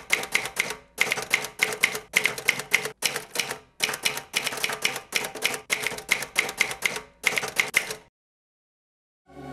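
Typewriter keys clacking in quick runs of strikes with brief pauses between them, the typing stopping near the end.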